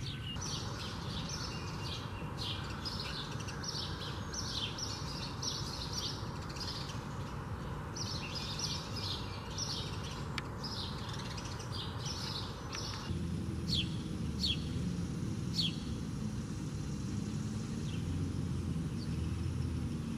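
House sparrows chirping, a busy run of short repeated cheeps that thins after about two-thirds of the way to a few single sharp chirps. Beneath them is a steady low background rumble.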